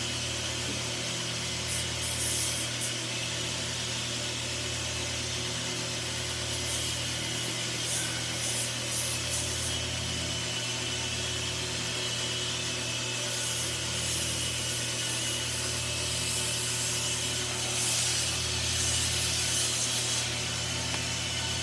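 Sandpaper being rubbed by hand along a knife blade: repeated rasping strokes that come and go in spells, over a steady low hum.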